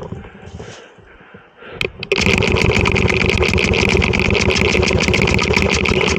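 Heavy breathing close to the microphone, then about two seconds in a paintball marker fires a rapid, continuous stream of shots: a fast run of mechanical clicks lasting about four seconds.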